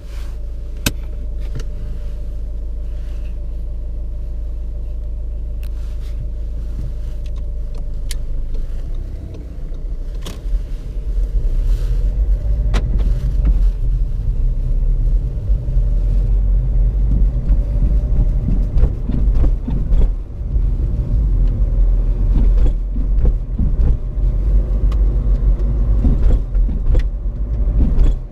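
Seat Ibiza's 1.6 TDI four-cylinder diesel, freshly started, idling steadily, heard from inside the cabin. About ten seconds in the car pulls away, and the engine and road rumble grow louder and more uneven as it drives, with a few light clicks from the controls.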